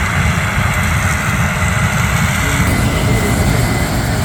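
Corn combine and its tractor-drawn grain cart running steadily at harvest: a loud, even machinery noise with a deep engine rumble underneath.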